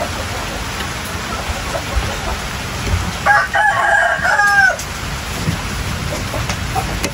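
A rooster crows once, a call of about a second and a half that falls in pitch at its end, over a steady hiss of rain.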